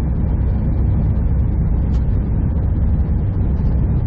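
Steady low rumble of a semi truck driving along the highway: engine and road noise heard from inside the cab.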